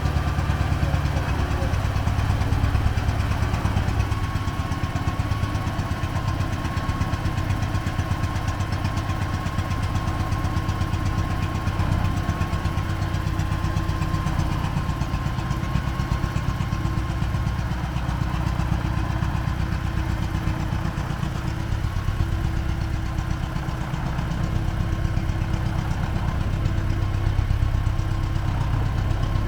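T-40AM tractor's air-cooled diesel engine idling steadily while it warms up.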